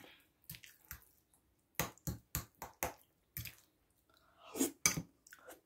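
Close-up wet chewing and lip smacks of someone eating mămăligă mixed with cheese and sour cream: a string of short, irregular smacks, thickest about two to three seconds in and again near the end.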